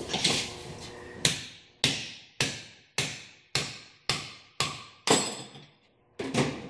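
Hammer striking a bearing race driver to knock a carrier bearing race and its shims out of a Toyota 200 Series Land Cruiser front differential housing: about eight metal strikes roughly half a second apart, each ringing briefly.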